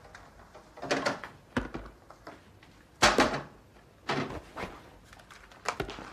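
Light knocks and clatters, about half a dozen spread irregularly and the one near the middle the loudest, as food containers are set onto the shelves of an open refrigerator.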